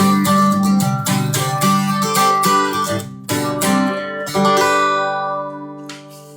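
Acoustic guitar strummed in a steady rhythm to close a song, ending on a final chord that rings out and fades over the last couple of seconds.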